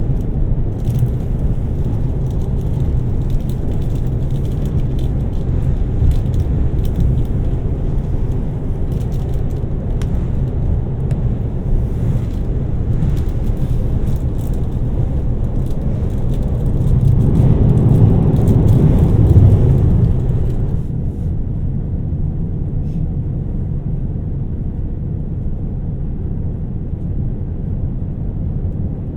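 Running noise of a 2700 series diesel express train heard from inside the carriage: a steady low rumble from the engine and the wheels on the rails, with light crackling above it. It swells for a few seconds about two-thirds of the way in, and the brighter upper part of the sound drops away soon after.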